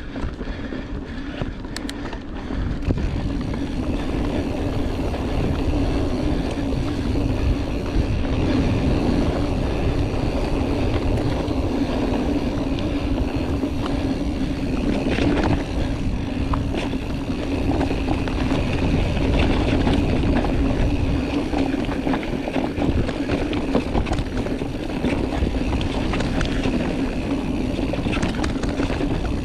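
Giant Trance Advanced mountain bike descending a dirt trail at speed: tyre rumble and frame and suspension rattle under heavy wind buffeting on the camera microphone, with a steady buzzing tone throughout. The noise picks up about two to three seconds in, then holds steady.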